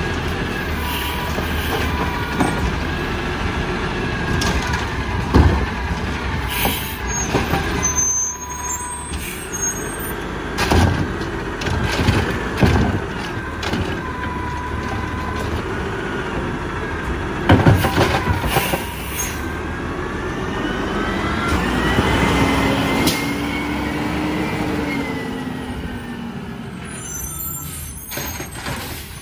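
Peterbilt 320 garbage truck with a DaDee Scorpion automated side-loader arm: the engine runs while the hydraulic arm lifts a wheeled trash cart, shakes it out into the hopper and sets it back down, with several loud knocks of the cart and arm. Near the end the engine revs up and then eases off as the truck pulls away, with an air-brake hiss.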